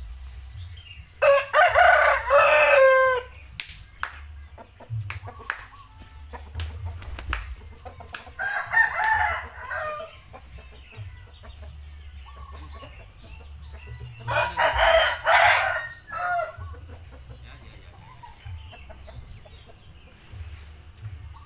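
Village rooster crowing three times, each a long call, about a second in, near eight seconds and near fourteen seconds. Between the first two crows come a few sharp hand claps, the kind used to call tame chickens.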